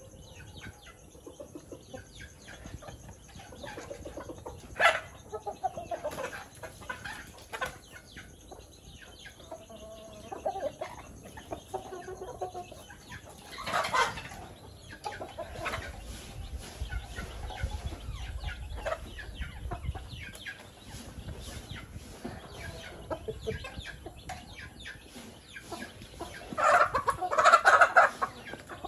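A flock of young chickens clucking while they peck at food on dirt ground, with a stream of small pecking ticks throughout. There is a sharp burst about five seconds in, a louder one at mid-point, and a loud scuffle of squawks and flapping near the end as the birds jostle.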